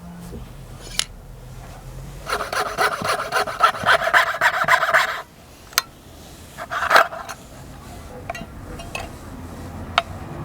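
Abrasive rubbing on a metal coin, a run of quick back-and-forth scraping strokes for about three seconds, then a shorter burst, with a few sharp clicks of metal being handled.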